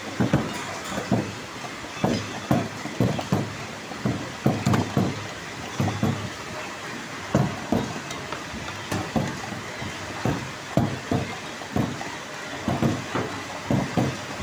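Packing-line machinery running steadily under irregular low knocks and thuds, one to three a second, as cardboard cartons and glass bottles are handled at the conveyor.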